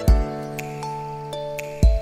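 Background music: a soft, bell-like melody over held chords, with a deep beat twice.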